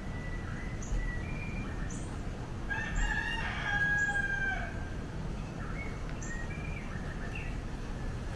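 Wild roosters crowing: one loud crow of about two seconds starts about three seconds in, with fainter calls from farther off before and after it.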